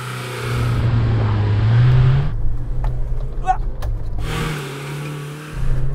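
Old Land Rover Defender's 2.2-litre turbodiesel engine revving hard in too low a gear on a muddy off-road course. Its note rises over the first two seconds, eases off in the middle, and picks up again near the end.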